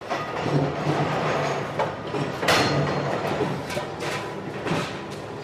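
Factory machinery noise in a sheet-metal workshop: a steady low hum with scattered metallic clanks, the loudest clank about two and a half seconds in.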